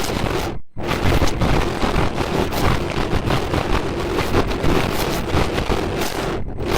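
Loud, steady rushing noise with a faint steady hum in it. It cuts out completely for a moment about half a second in and again near the end.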